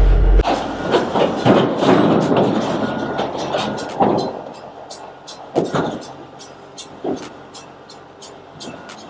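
Steel tracks of a tracked grinder clanking and rattling as the machine crawls, with a few heavier metal knocks, the clatter growing fainter. Background music with a heavy bass cuts off just after the start.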